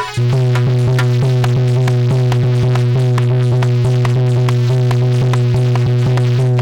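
Instrumental interlude of a Hindi devotional folk song: one low note held steadily on a keyboard-like instrument over a fast, even drum beat.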